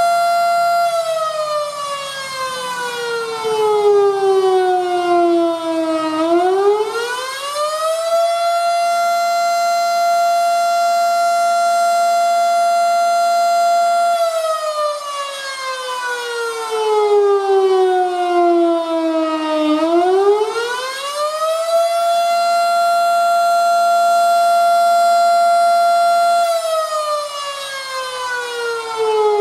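Federal Signal Model 5 outdoor warning siren sounding the attack signal. A single tone holds high for about six seconds, slides down over about five seconds, then climbs back quickly, and this repeats through two full cycles with a third fall starting near the end.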